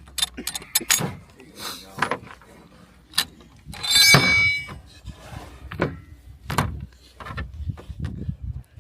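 Rifle parts being handled: a string of sharp metal clicks and knocks, with a louder clattering, ringing clank about four seconds in.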